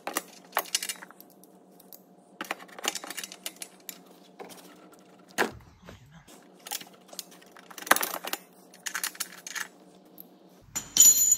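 Socket ratchet clicking in short bursts as it is swung back and forth, undoing a NOx sensor that has cracked loose from the exhaust pipe. A sharper metallic clink with a brief ring near the end.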